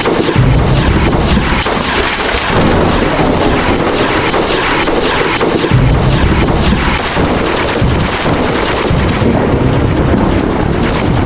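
Many thunder and lightning-strike sound effects layered over each other: a dense, continuous crackling with heavy low rumbles swelling in and out.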